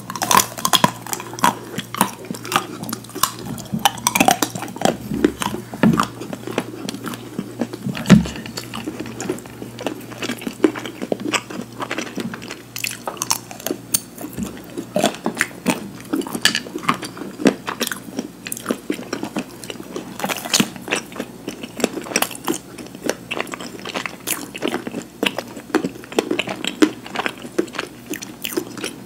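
A person biting and chewing crunchy food close to the microphone: a run of sharp, crisp crunches, several a second, with one louder crunch about eight seconds in.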